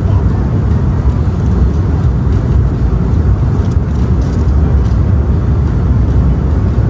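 Steady, loud low roar of airliner cabin noise, the engines and airflow heard from inside the passenger cabin.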